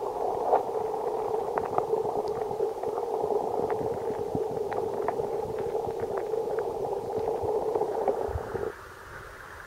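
Muffled rush of stream water heard through an underwater camera housing: a steady, dull noise with scattered small clicks. Near the end it switches suddenly to the thinner, quieter hiss of the stream heard above water.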